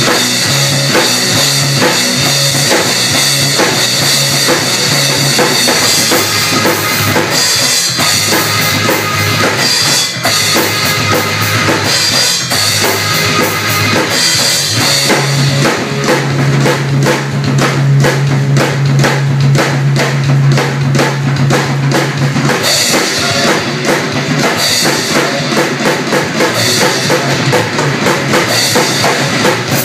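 Ludwig drum kit played fast and hard along to a rock track: dense kick, snare and cymbal hits over the song's sustained backing notes.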